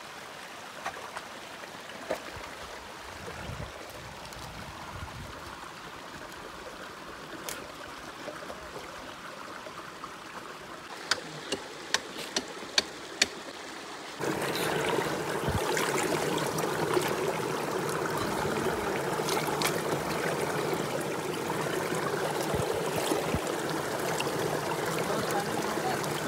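A shallow rocky mountain stream running over stones. About halfway there is a quick run of half a dozen sharp knocks as stones are pried with wooden poles, and then the water turns suddenly louder and closer.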